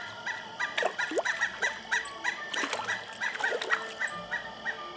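Pileated woodpecker calling among other birds: a run of short repeated notes with quick downward-sweeping calls among them.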